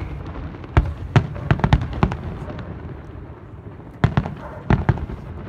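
Fireworks display: aerial shells bursting in two quick volleys of sharp bangs, the first about a second in and the second about four seconds in.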